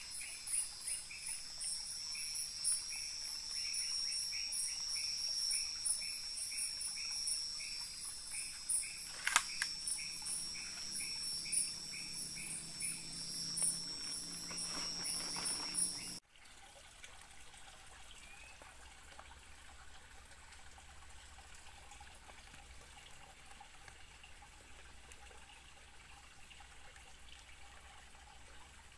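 Night chorus of insects: a steady high-pitched trill with rapid chirps pulsing about twice a second, and one sharp click about nine seconds in. About halfway through it cuts off abruptly, leaving only a faint trickle of running water.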